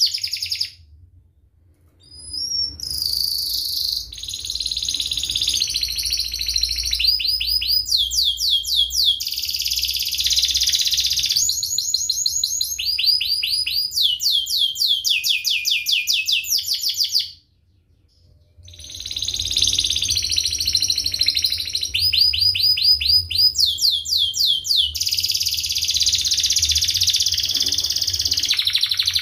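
Domestic canary singing, a dense song of rapid chirps and rolled trills: runs of fast repeated downward-sweeping notes alternating with continuous warbling rolls. The song breaks off twice briefly, about a second in and a little past halfway.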